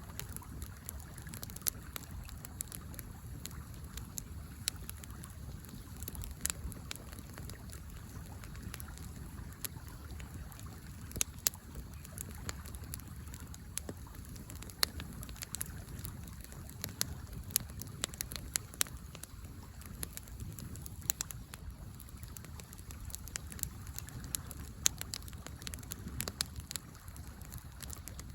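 Wood fire in a fire pit crackling, with frequent sharp pops and snaps over the steady low rush of a flowing river.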